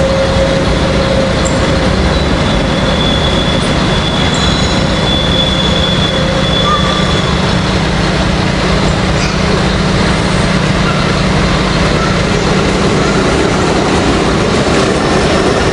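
Railway noise as an S499.2 electric locomotive approaches along curved station track: a steady, loud rush, with a thin high squeal-like tone in the first half.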